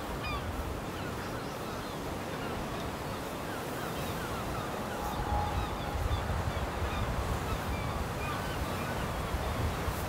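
Many short bird calls scattered over a steady wash of sea surf and wind.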